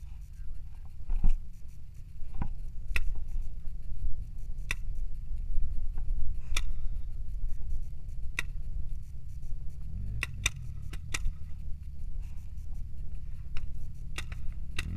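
Paintball marker shots popping here and there, a dozen or so single shots and quick pairs, over a steady low wind rumble on the action camera's microphone.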